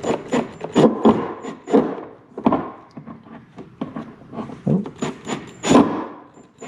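Irregular knocking and scraping of a drill bit working a screw out of a plastic boat hull, with a few short high whines.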